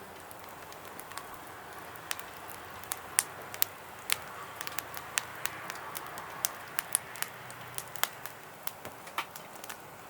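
Conifer firewood burning in a small fire pit, crackling with sharp, irregular pops over a faint steady hiss.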